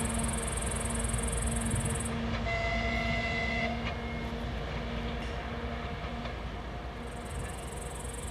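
TEP70BS diesel passenger locomotive's 16-cylinder engine running steadily as it pulls away, with the train rolling on the rails and the sound slowly fading. A brief high tone of about a second sounds about a third of the way in.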